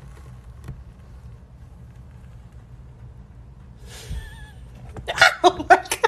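A faint low hum, then a person laughing in quick bursts near the end.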